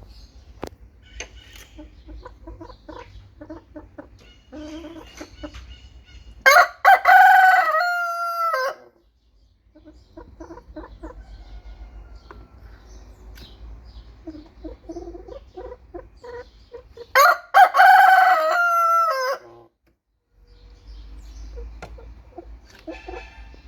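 Rooster crowing twice, each cock-a-doodle-doo lasting about two seconds, with softer short clucking calls from chickens in between.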